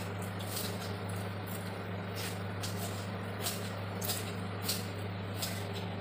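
A steady low background hum, with faint short ticks scattered through it.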